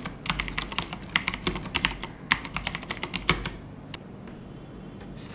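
Typing on an iKBC CD108 mechanical keyboard with Cherry MX Brown switches: a quick, irregular run of key clacks that stops about three and a half seconds in.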